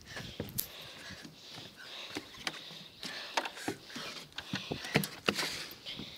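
Footsteps and scuffs on gritty asphalt, with irregular light clicks and knocks throughout as a boy moves in and takes hold of a metal playground bar.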